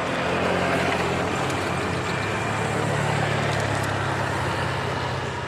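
A motor vehicle's engine running close by, a steady low hum that swells in the first second, holds, then eases a little near the end, as of traffic passing.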